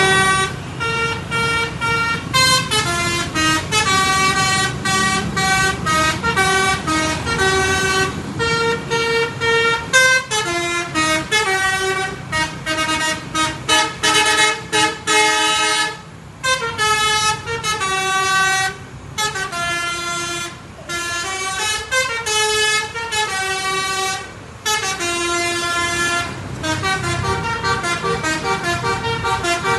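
Indonesian bus telolet horn playing a quick melody of stepped musical notes, over the rumble of the bus engine, with a few short breaks in the tune.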